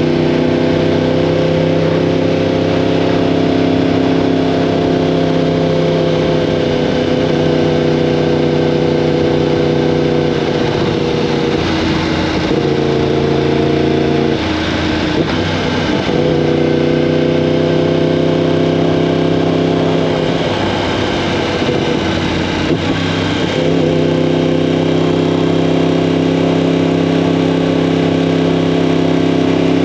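2015 Yamaha R1M's crossplane inline-four engine through an Akrapovic exhaust, running at steady revs under way. The revs fall off and pick up again twice, around the middle and about two-thirds of the way through.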